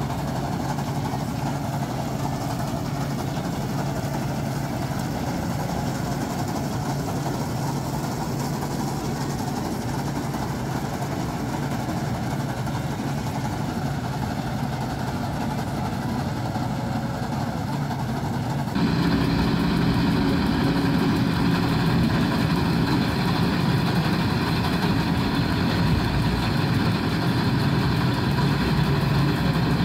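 Claas Crop Tiger 40 combine harvester running steadily while it cuts rice: engine hum together with the threshing machinery. About two-thirds of the way through the sound suddenly becomes louder and brighter, then runs on steadily.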